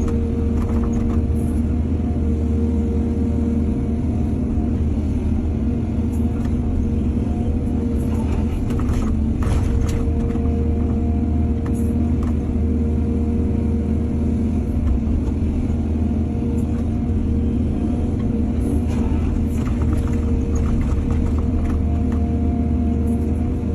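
Heavy diesel engine of an excavator running steadily, with short metallic clatters about eight to ten seconds in and again near twenty seconds.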